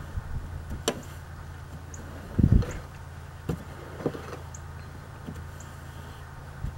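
Snow brush sweeping and knocking snow off a car windshield: scattered dull thumps and knocks, the loudest about two and a half seconds in, over a steady low hum.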